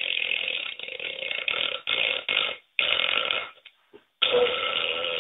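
A long rasping bodily noise from a man straining, broken into several spurts, cutting out briefly twice near the middle before carrying on.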